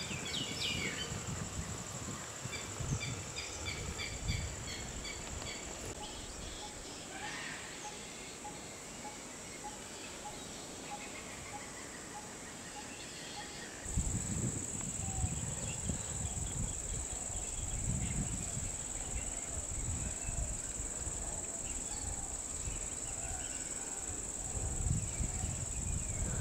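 Outdoor wild ambience: a steady high-pitched insect drone with birds calling in short repeated notes, over a low rumble. About halfway through the mix changes abruptly and the insect drone becomes louder.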